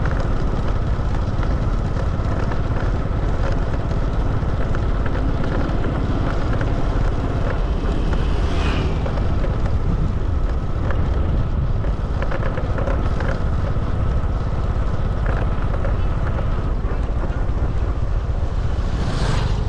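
Motorbike engine running steadily at cruising speed, buried under heavy wind rumble on the microphone.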